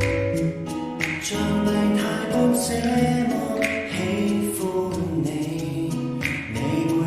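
Cantopop song playing through a spacious, echoing effect: sung vocals over instrumental backing, with accented beats about every two and a half seconds.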